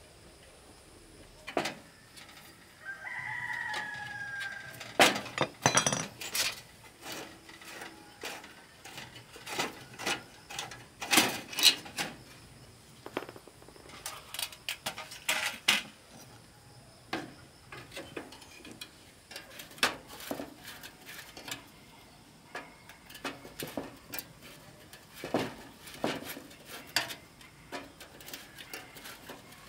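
A rooster crows once, about three seconds in, over a run of irregular sharp knocks and clinks from hand work.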